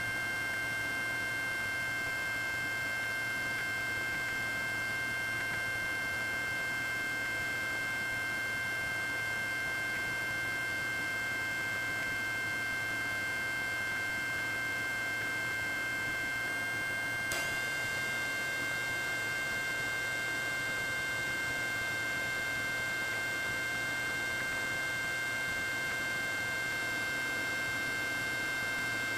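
Steady electronic hum and whine: several high steady tones over hiss, unchanging and without rhythm. A single short click about 17 seconds in, after which the tones shift slightly.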